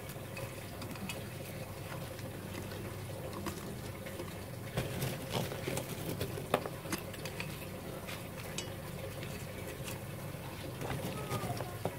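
Lumps of charcoal and pieces of coconut husk clicking and rustling as they are packed by hand into a clay pot. The small clicks come scattered and bunch up about five seconds in and again near the end.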